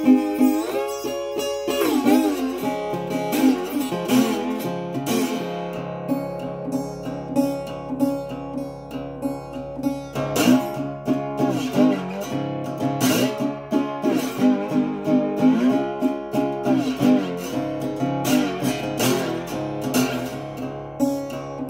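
Acoustic guitar in open C# tuning played slide-style, with no singing. The melody notes glide up and down over a steady picked bass.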